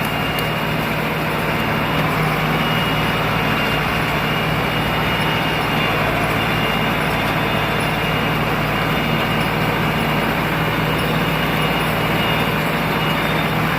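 Tractor engine running steadily under load while driving a round baler (hay roller) off the PTO, with a constant low hum and a thin high whine. The baler behind is hardly heard over the engine, its PTO shaft quieted by a plastic PTO guard.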